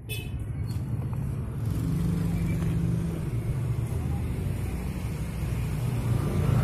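An engine running with a steady low rumble that grows a little louder near the end.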